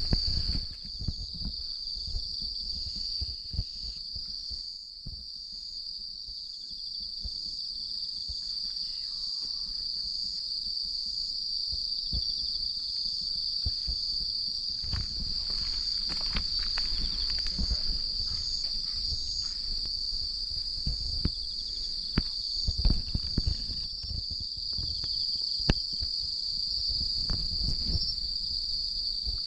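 Insects singing in one steady, unbroken high-pitched trill, with scattered short clicks and low bumps over it.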